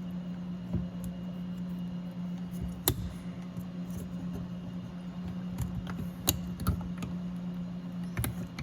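Scattered light clicks and taps of a plastic door trim piece being worked and pressed into place, with a sharper click about three seconds in and a few more later on, over a steady low hum.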